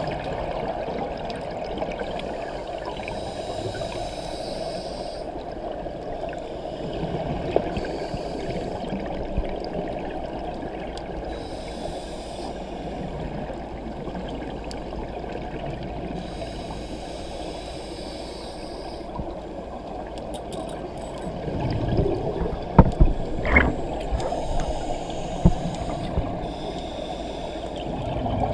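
Underwater sound of scuba regulator breathing: a hiss of drawn air that comes back every few seconds, with the wash of exhaled bubbles between breaths. Between about 22 and 26 seconds in there is a cluster of louder knocks.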